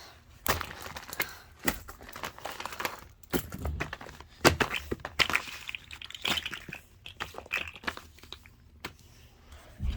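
Fidget toys being handled and swapped: scattered clicks, crinkles and rustles from plastic and soft toys being moved about.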